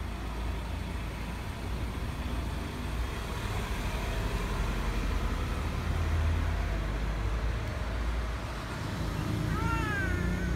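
Steady low rumble of distant traffic, swelling a little midway. Near the end a cat gives one short meow that rises then falls.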